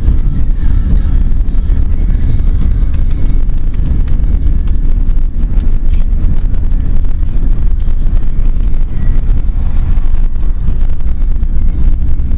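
Steady low road and engine rumble inside a moving van, with an irregular crackle of buffeting on the microphone.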